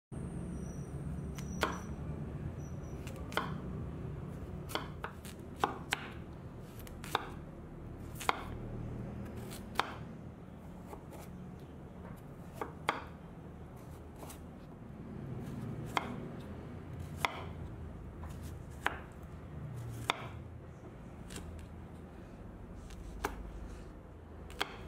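A kitchen knife chopping carrot and green beans on a thick wooden cutting board: sharp knocks of the blade on the wood, spaced unevenly about a second or so apart, over a low steady hum.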